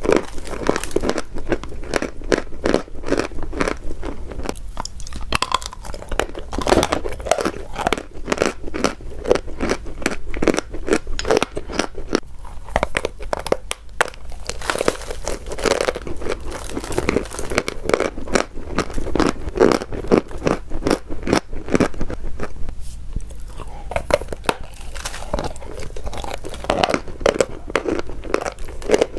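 Pieces of chalk being crushed and crumbled, a dense, continuous run of sharp, crackly crunches.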